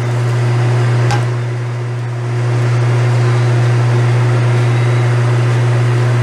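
Chicken broth being poured into a hot, simmering stainless steel pan of chicken stew, with a hiss that grows louder about two seconds in. Under it runs a steady low hum, the loudest sound, and there is a single knock about a second in.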